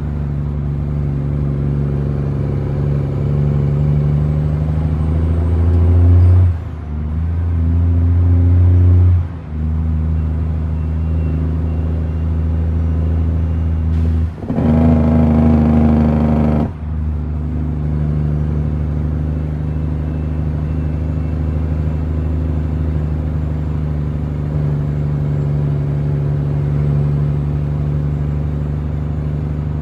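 Heavy truck's diesel engine heard from inside the cab, running steadily under load on the road. The engine sound dips briefly four times, and there is a louder, rougher stretch of about two seconds in the middle.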